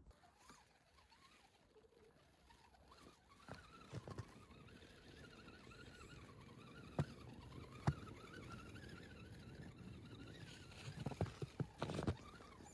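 Radio-controlled scale crawler truck's electric motor and gearbox whining faintly as it crawls through snow, the pitch wavering up and down with the throttle. Two sharp clicks in the middle, then a rapid run of knocks near the end as it bumps over branches.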